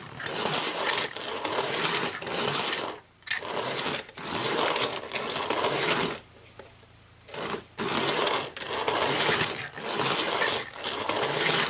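Tri-ang toy locomotive's electric motor and gears whirring and clattering as the chassis runs along metal track. It runs in spurts and stops several times, with a longer pause about six seconds in. The hesitant running is typical of poor contact from dirty track.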